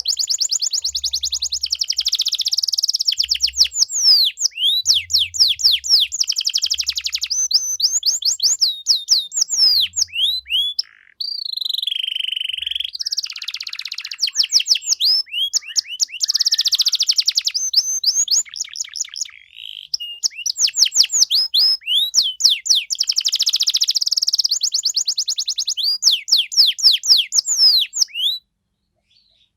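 Domestic canary singing a long, loud song of rapid trills and quickly repeated high notes, with only brief breaks, stopping shortly before the end.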